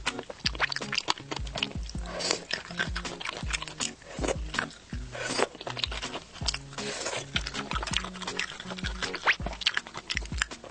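Close-miked crunching and chewing of crisp gongcai (celtuce stem), many sharp crunches in quick, irregular succession, over soft background music.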